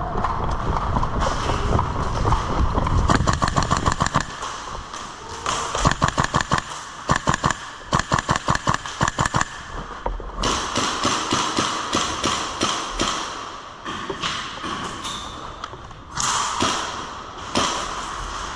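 Airsoft guns firing in rapid full-auto bursts, several strings of fast, evenly spaced cracks one after another, with pauses between them.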